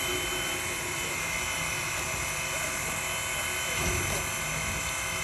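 Steam locomotive standing with steam hissing steadily, a thin high whine running through the hiss.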